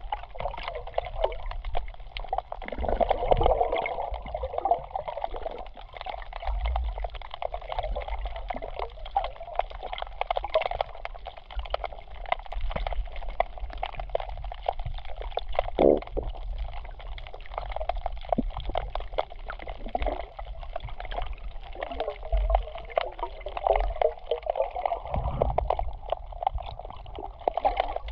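Seawater gurgling and sloshing, heard muffled through a camera held underwater, with scattered small clicks and a few low thumps.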